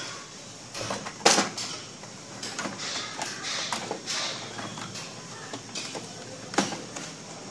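Plastic clicks, creaks and knocks of an Epson L565 printer's opened ADF housing being handled, with a sharp knock about a second in and another near the end.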